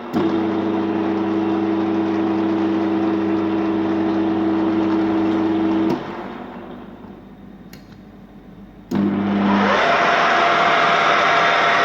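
Kolb pillar drill with a 12-speed geared head, its electric motor switched on and running with a steady hum. It cuts off about six seconds in and runs down, then starts again about three seconds later and runs up to a steady whine.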